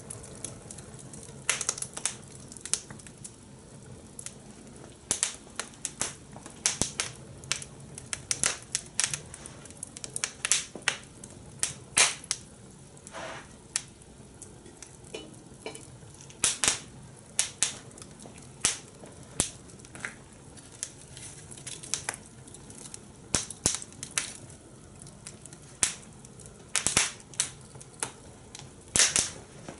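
Fire pit fire crackling as corn grills over it: irregular sharp pops and snaps, sometimes several a second and sometimes a second or more apart, over a faint low steady hum.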